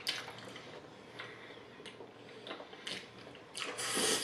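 Close-miked eating of fettuccine alfredo: faint clicks of forks and chewing, with a louder slurp of noodles near the end.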